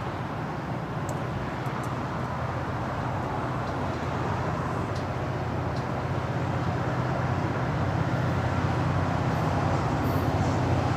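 Approaching train rumbling on the tracks, growing steadily louder as it nears.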